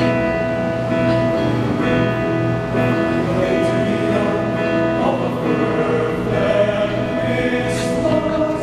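A male choir singing together in harmony, holding long chords.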